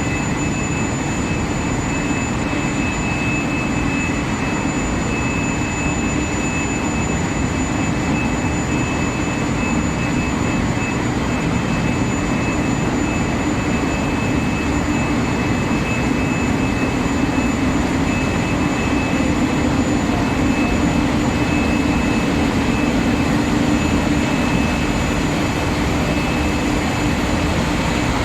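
Induction hardening and tempering line for threaded steel bar running: a steady industrial drone with two thin, high-pitched steady whines over it.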